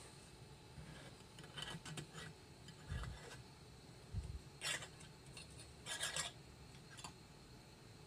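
Brass oil-lamp burner being unscrewed from a wide-mouth Mason jar: short rasping scrapes of the metal collar turning on the glass threads, the two longest past the middle, with a couple of dull handling bumps.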